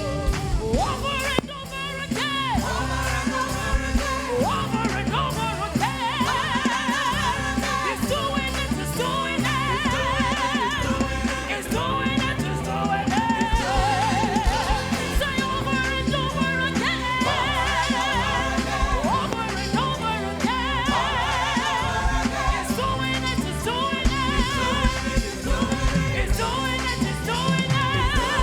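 Gospel singing with vibrato-laden lead and backing voices over a band with bass and a steady drum beat.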